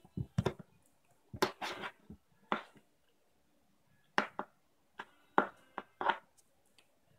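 A cat batting at a string toy and rolling against a cardboard box: irregular clusters of short knocks and scrapes from its paws and body on the cardboard, with a pause about three seconds in.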